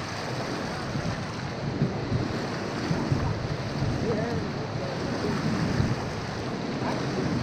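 Steady rush of churning river water pouring from a dam's spillway gates, with wind buffeting the microphone.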